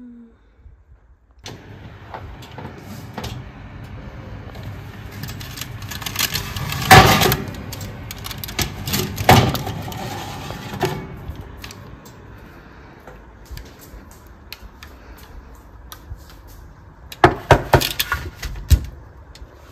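Bread being taken from a hot oven: a steady rushing noise with sharp metal knocks and clatters of a baking tray, two loud ones about seven and nine seconds in and a quick run of them near the end.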